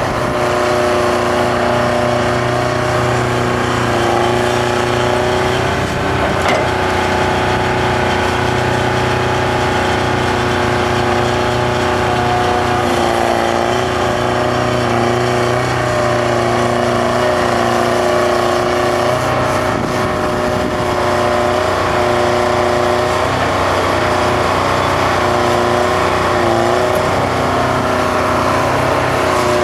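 Bucyrus-Erie 20-H excavator's Detroit Diesel 4-71 two-stroke engine running steadily under working load while the machine digs, swings and dumps. Its pitch shifts slightly now and then.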